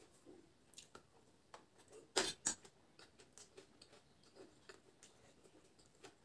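A person eating soft noodles close to the microphone: quiet chewing and mouth clicks, with two louder sharp sounds about two seconds in.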